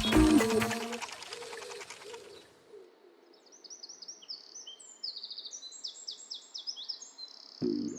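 Orchestral music fading out over the first couple of seconds, then birdsong: quick, high chirps and downward-sweeping trills from several birds overlapping. A short low sound comes just before the end.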